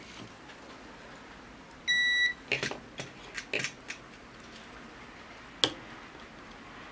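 Digital multimeter in continuity-buzzer mode giving one steady half-second beep as its probes close a circuit. Then probe tips click and scrape on a circuit board several times, with one sharp click near the end.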